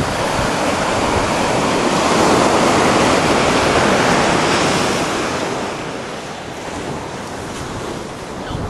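Ocean surf: a wave breaking and washing up the sand, swelling to a peak a couple of seconds in and fading after about five seconds.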